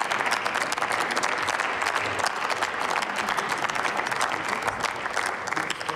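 A group of people applauding, with many hands clapping at once; the clapping dies down near the end.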